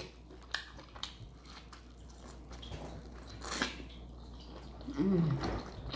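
Wet eating sounds from a seafood boil: quiet chewing and lip-smacking clicks, with a brief slurp about three and a half seconds in and a short falling voice sound near the end.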